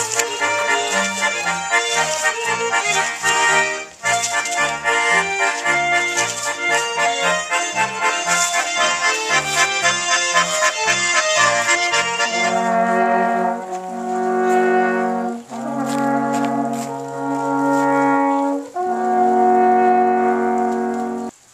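Fast instrumental music with quick, regular bass notes, then about halfway through three alphorns playing long held chords together, each chord lasting a few seconds with short breaks between them.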